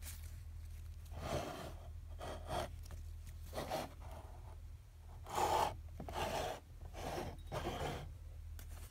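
Handling noise from a plush toy moose: about nine short rubbing and rustling sounds as fingers work over its fur and paper tag.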